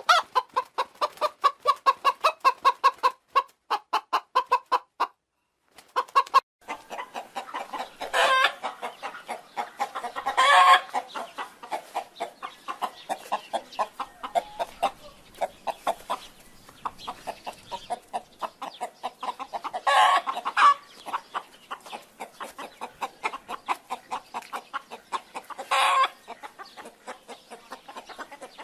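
Chickens clucking, with short calls repeated several times a second throughout. About four times a louder, drawn-out call rises above the clucking.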